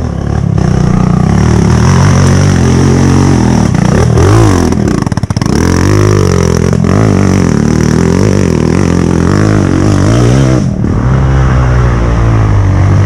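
Dirt bike engine running loud, revving up and down around the middle, with a brief dip in sound about five seconds in and another rise in revs near the end.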